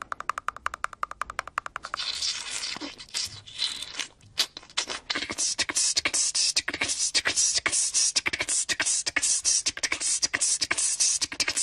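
Voices making percussive mouth sounds: a fast run of clicks for about two seconds, then a rapid stream of sharp hissing 'ts' sounds.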